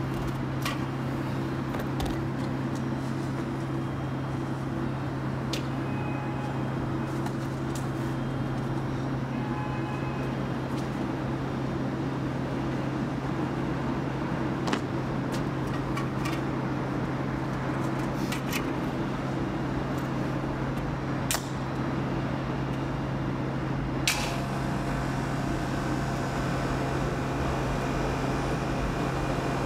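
Steady low hum over a constant hiss, broken by scattered sharp clicks, the loudest about 24 seconds in.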